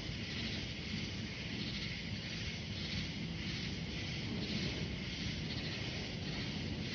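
Night-time chorus of insects, one high-pitched call pulsing evenly about twice a second over a steady shrill hum of others. A low rumble runs underneath.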